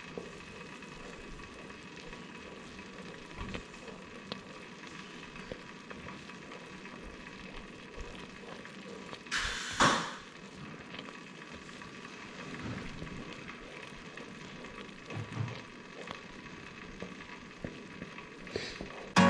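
Prickly pear jelly mixture of juice and sugar at a rolling boil in a pot, bubbling steadily as a wooden spoon stirs it: the three-minute hard boil that sets the jelly. One brief, louder rush about ten seconds in.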